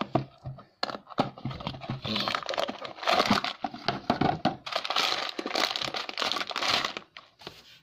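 Clear plastic bag full of tiny plastic building bricks crinkling and crackling as it is taken out of its cardboard box and handled, with a few sparse clicks first and then dense crinkling from about a second in until near the end.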